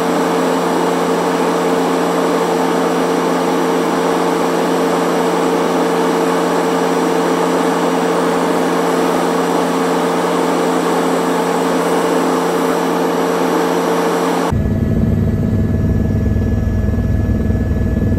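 Helicopter in flight heard from inside the cabin: a loud, steady drone of engine and rotor with a constant hum. About three-quarters of the way through it changes abruptly to a deeper rumble of the same steady kind.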